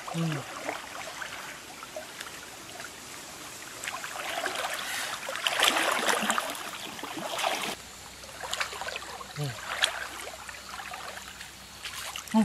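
River water splashing and sloshing around a person wading chest-deep, loudest about halfway through.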